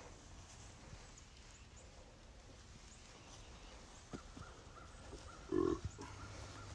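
A single short, loud animal call about five and a half seconds in, over quiet outdoor background, with a few footsteps on dirt shortly before it.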